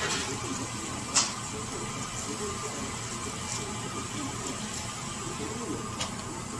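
Steady background noise with faint voices and a few sharp clicks, the loudest about a second in.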